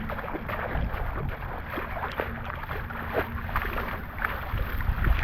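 Running footsteps splashing through shallow puddle water, with wind rumbling on the microphone.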